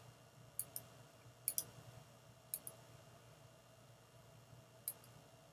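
Computer mouse clicking: four quiet clicks in the first five seconds, the first three each a quick double tick, as items are picked from a drop-down menu.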